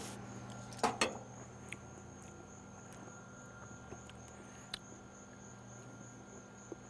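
Steady high trilling of crickets in the background. Two sharp knocks come about a second in, and a few faint clicks follow.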